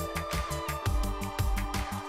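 Electronic background music with a steady, fast beat: a low kick about four times a second, ticking hi-hats and held synth chords.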